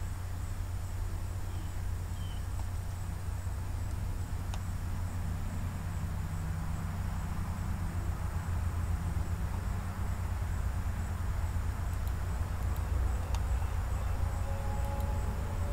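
Steady low background hum, with two faint clicks, one about four seconds in and one near the end.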